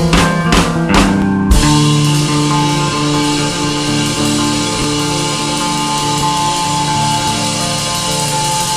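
Instrumental ambient progressive rock: a few drum-kit strikes in the first second and a half, then a held chord that rings on steadily.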